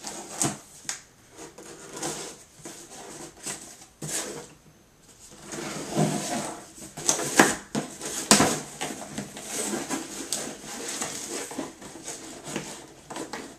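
Packaging being opened and handled by hand: irregular rustling and scraping with scattered clicks and knocks, and a quieter pause about four seconds in.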